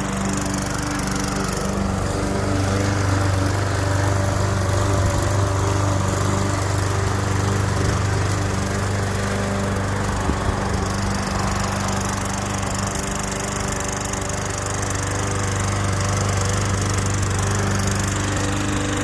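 Toro walk-behind gasoline lawn mower running steadily at cutting speed while it is pushed across the lawn mowing grass.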